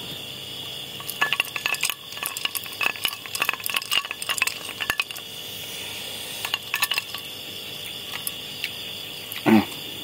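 Ice cubes clinking and rattling against a drinking glass as it is handled and swirled, in quick bursts through the first seven seconds. Crickets chirr steadily underneath.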